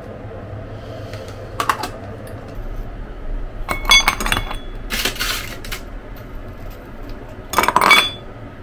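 Tableware being handled: a light clink, then a cluster of ringing clinks about four seconds in, a brief scraping noise just after, and another burst of ringing clinks near the end.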